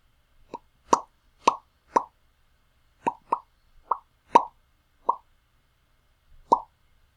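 Lips popping: about ten short, hollow pops at an uneven pace, some in quick pairs.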